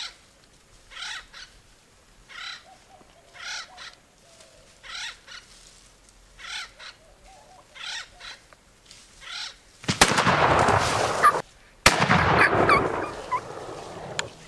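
A bird gives short harsh calls, about one every second and a half. Then two shotgun shots about two seconds apart, each with a sharp crack followed by a second or so of loud noise that dies away, the shots of two hunters each taking a Gould's turkey gobbler.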